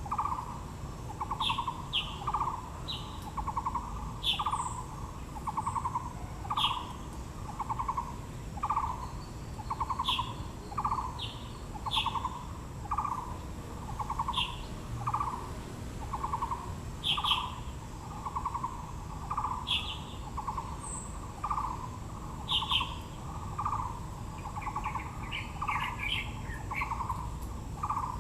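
A bird repeating a low, rattling note about once a second, steady and unbroken, while other birds give short, high chirps now and then, with a brief flurry of chirps near the end.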